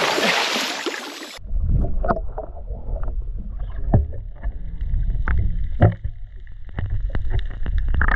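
Sounds on a small fishing boat at sea: a loud hiss of wind or spray cuts off abruptly about a second and a half in. A low rumble follows, with many sharp knocks and clicks on and around the boat.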